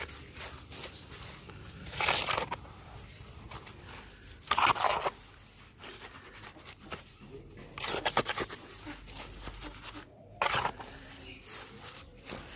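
Four short bursts of scraping and crunching, roughly every two to three seconds, with faint clicks and rustles in between: hand-work handling building material.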